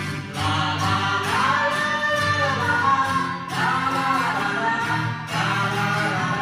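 A song sung to band accompaniment: long, sliding vocal phrases over a steady backing, with a short break about five seconds in.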